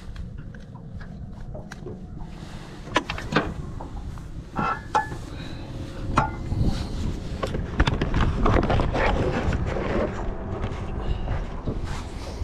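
Knocks and clicks from a person moving about a fishing boat's deck and handling gear, several sharp ones spread across the middle, over a steady low rumble.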